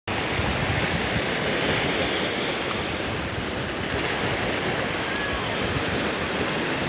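Waves on a choppy sea sloshing steadily, with wind buffeting the microphone in a low rumble.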